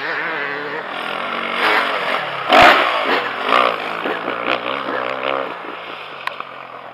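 Motocross bike engine revving up and down as it rides, its pitch rising and falling, with a loud thump about two and a half seconds in and a couple of sharp clicks near the end.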